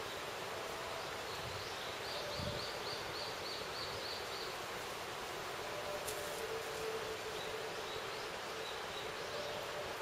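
Steady rushing of the Yukabake waterfall, its flow swollen by rain. A bird chirps a quick run of about eight short high notes a couple of seconds in, and a few fainter notes near the end.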